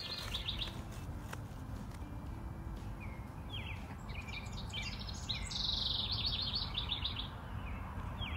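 Songbirds chirping and singing, short repeated notes with a quick run of notes a little past halfway, over a steady low outdoor rumble.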